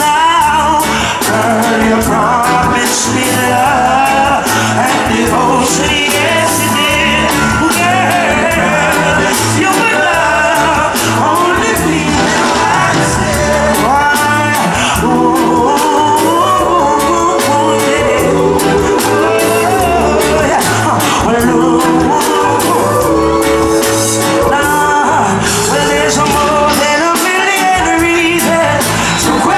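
Live reggae band performance: a male singer over keyboards and bass guitar, with a steady repeating bass line and beat.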